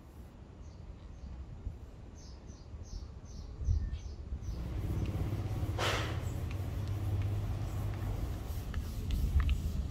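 Outdoor ambience: a small bird gives a quick run of about seven short high chirps. A low steady rumble like distant traffic then sets in, broken by one brief loud swish about halfway through and a few light ticks near the end.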